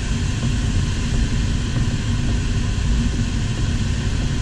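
Steady rush of airflow over an LS4 glider's canopy and fuselage in flight, heard from inside the cockpit as an even noise with a low rumble.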